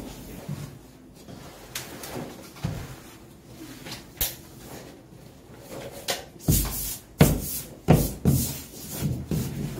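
A string of irregular knocks and thumps from hands-on work, with a run of louder, heavier thumps in the second half.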